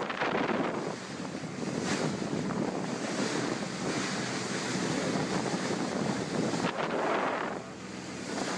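Wind buffeting the microphone over the rush of sea water around a boat, with a faint steady low hum underneath.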